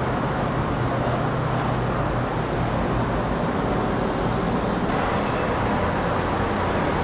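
Steady outdoor city din, mostly distant traffic, with a low hum running under it and a faint thin high tone in the first few seconds.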